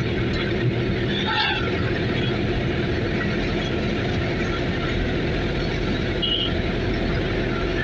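Steady engine and road noise of a moving vehicle, heard from inside it.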